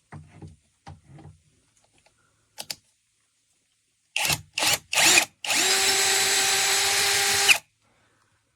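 Cordless drill/driver: a few light handling knocks and a click, then the trigger is blipped three times in quick succession before the motor runs at a steady speed for about two seconds and stops suddenly.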